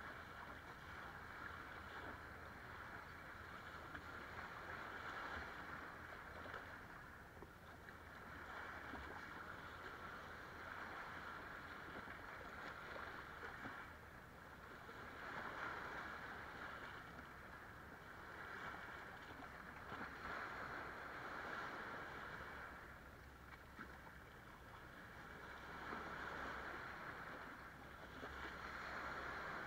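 Small waves washing in over sand and around rocks at the shoreline, swelling and ebbing every few seconds, with a low steady rumble underneath.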